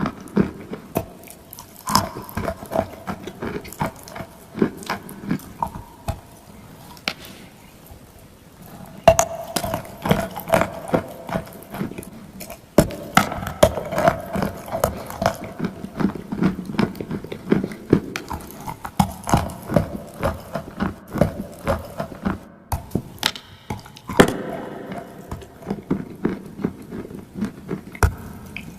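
Close-up crunching and chewing of dry and wet clay: a dense run of irregular sharp crunches and cracks.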